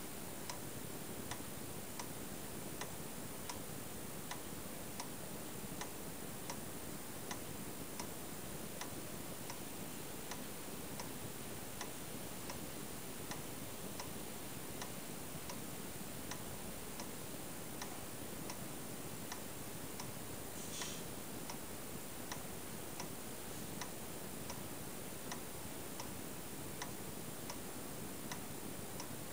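Siemens & Halske electric pendulum master clock, built 1926/1927, ticking in an even rhythm. A short, faint high hiss comes once, about two-thirds of the way in.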